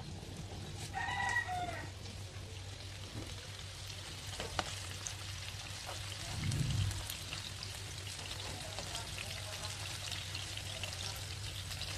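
Chicken pieces frying in oil in a wok, with a steady faint sizzle and crackle while a spatula turns them. There is a dull knock near the middle. About a second in comes a short pitched call.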